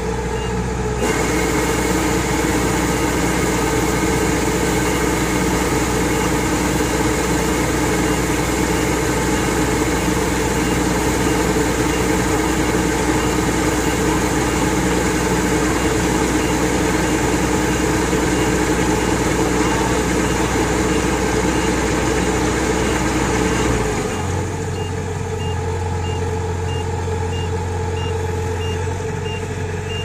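Heavy farm machinery running steadily under a constant engine drone, whose tone changes abruptly about a second in and again near the end. An electronic reversing alarm beeps about twice a second at the start and through the last several seconds.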